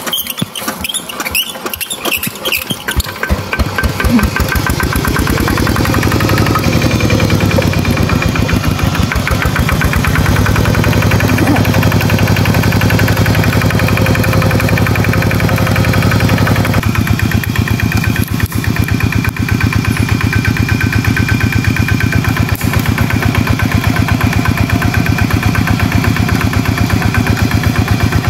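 Single-cylinder diesel engine of a two-wheel walking tractor starting up: slow putts that quicken and grow louder over the first few seconds, then settle into a steady, even chugging run. Its tone shifts slightly a little past halfway.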